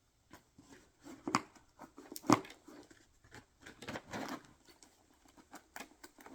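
A zip-tie tube and tools being handled and packed into a tool bag: a few sharp clicks and knocks, the loudest a little over two seconds in, then rustling around four seconds in.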